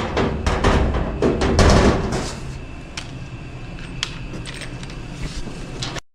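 Front panel of the Xtool MetalFab machine's base cabinet being fitted and pushed into place by hand: scraping and clatter over the first couple of seconds, then a few sharp clicks and taps as it is pressed home. Background music runs underneath.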